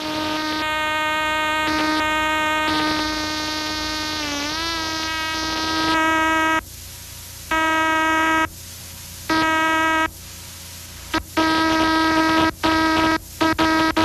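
Morse code from an old-time spark-coil transmitter, a buzzy steady note. It holds unbroken for the first half, wavering in pitch once near the middle, then is keyed on and off in dashes and dots.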